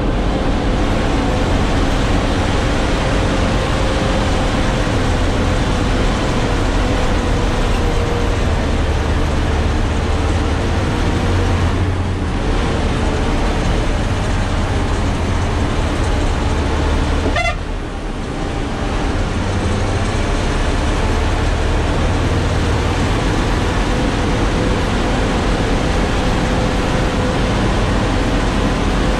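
Truck's diesel engine running hard as it climbs a hill road, heard from inside the cab, with a steady whine over the engine noise. The sound drops briefly a little past halfway, then picks up again.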